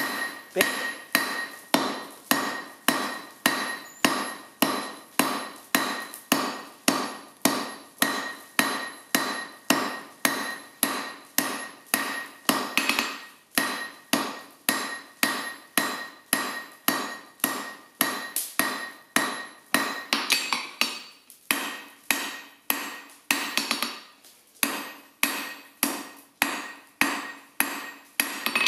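Hand hammer striking a red-hot steel bar on an anvil, drawing it down. Steady blows come about two a second, each with a short metallic ring.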